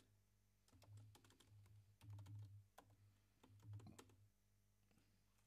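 Faint typing on a computer keyboard: short runs of keystroke clicks that stop about a second before the end.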